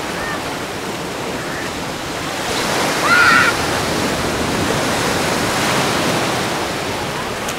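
Small waves breaking and washing up the beach: a steady rush of surf that swells a little after about two and a half seconds. A brief high-pitched cry cuts in about three seconds in.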